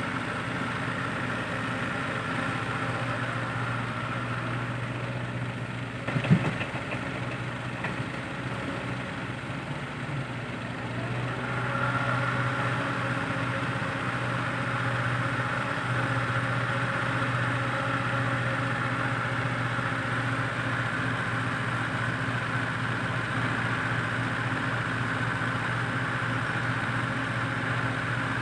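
Heavy diesel machinery running steadily, with a single sharp clunk about six seconds in. The engine gets louder and busier from about twelve seconds in, as if working under more load.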